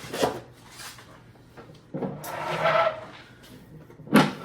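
Handling sounds from the oscilloscope's front cover and its latch: a click near the start, a rubbing scrape about two seconds in, and a sharp knock near the end.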